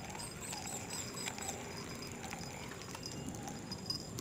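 Outdoor ambience: a steady high-pitched insect drone, with a quick run of short, high chirps from about half a second to a second and a half in.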